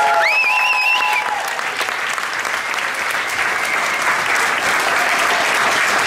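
Audience applauding, with a shrill whistle from the crowd that rises sharply and wavers for about a second at the start.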